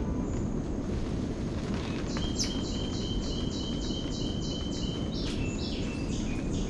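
High-pitched animal calls: a rapid, evenly spaced run of chirps, about three or four a second, starts about two seconds in, followed by a few notes stepping down in pitch near the end. Steady jungle background noise lies beneath.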